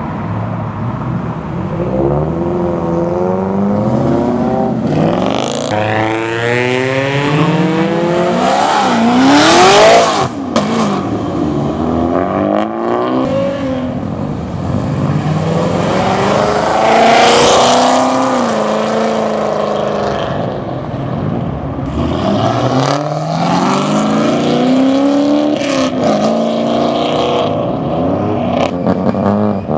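Several cars accelerating hard away one after another, their exhausts revving up and dropping back as they shift, with the loudest pulls about ten and seventeen seconds in.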